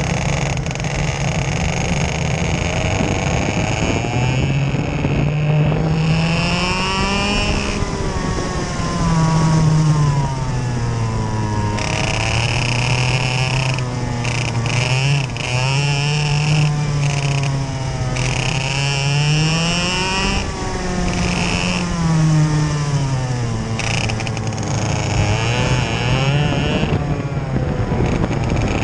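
Two-stroke TaG racing kart engine heard onboard at race pace, its pitch rising as it revs out on the straights and falling back into the corners, over and over.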